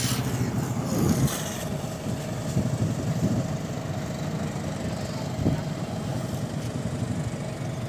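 A motor vehicle engine idling: a steady low rumble with a faint, even whine above it and a few light knocks.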